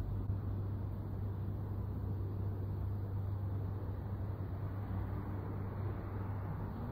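Steady low background rumble, with a cat's faint, low, drawn-out yowl rising and falling near the end, the warning call of a cat in a standoff with another cat.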